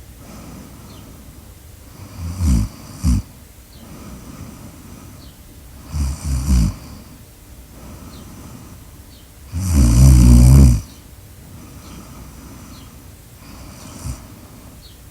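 A person snoring: three snores about four seconds apart, the third long and the loudest, then a faint short one near the end.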